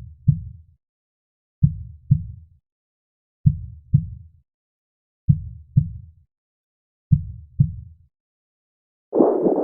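Heartbeat sound effect: a slow, even lub-dub, five double thumps about one every 1.8 seconds, with silence between the beats. Near the end a different, denser whooshing sound with a pulse starts.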